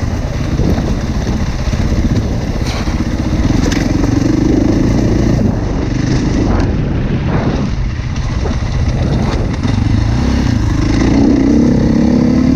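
Enduro dirt bike engine running as it is ridden along a rough forest track, rising and falling with the throttle, heard close from the bike itself. A few sharp knocks come from the bike over the rough ground, and the engine grows louder near the end.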